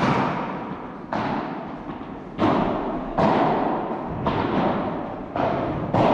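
Padel rally: the ball being struck by rackets and bouncing, sharp hits about a second apart, each ringing out in the echo of a large indoor hall.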